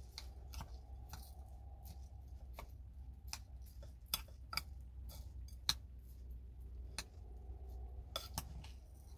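A fork clinking and scraping against a ceramic bowl in irregular light taps, mixing minced meat into rice, over a steady low hum.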